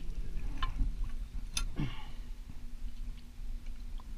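A few sharp clicks and knocks from fishing gear handled in an aluminum boat, over the low steady hum of a small outboard motor.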